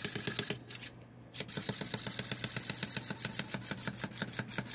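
Clockwork wind-up Rowlet toy running, its spring-driven mechanism clicking rapidly and evenly, about ten clicks a second, as it hops on a wooden tabletop. The clicking breaks off briefly about half a second in, then starts again.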